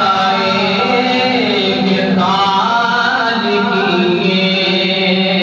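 A man's voice chanting a melodic devotional recitation, with long held notes that slide up and down.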